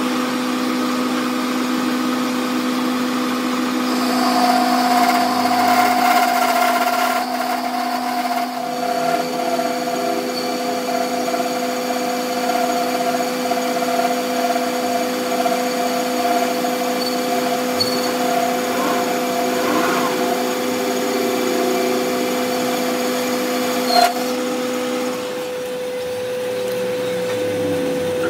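Metal lathe running with a steel gear spinning in its chuck while a tool bores and faces it, a steady hum with several tones. A higher whine from the cut sets in about four seconds in and stops with a sharp click near the end, after which the lowest hum drops away as the lathe winds down.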